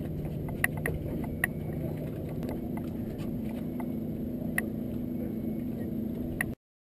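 Steady hum of a boat motor, its pitch stepping up about two and a half seconds in, with a few sharp clicks over it. The sound cuts off suddenly near the end.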